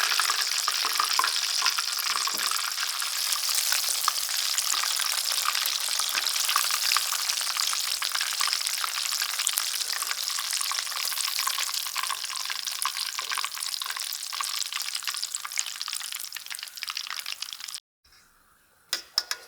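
Chicken karaage pieces deep-frying in hot oil: a dense, steady sizzle and crackle. It cuts off suddenly near the end, and a couple of sharp clicks follow.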